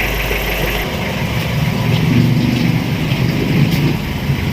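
An engine idling: a steady low rumble that comes up about a second in.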